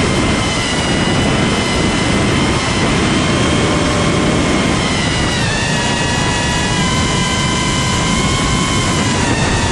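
iFlight Protek 35 FPV drone's brushless motors and propellers whining over a steady rush of prop noise. The pitch of the whine shifts up a step a little past halfway through.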